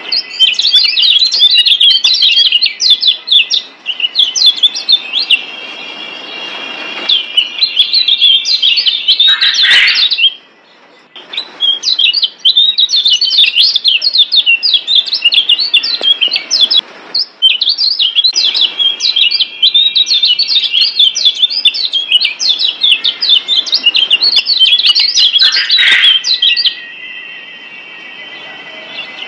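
Kecial kuning, the Lombok yellow white-eye, singing a fast, high-pitched twittering chatter in long runs. It breaks off briefly about ten seconds in and again near the end, where a thinner, steadier trill carries on.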